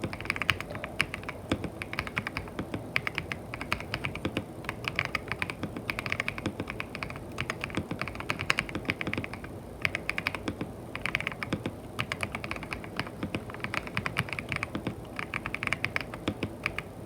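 Typing test on a freshly built KBDfans Tiger 80 Lite mechanical keyboard: fast runs of keystrokes broken by short pauses.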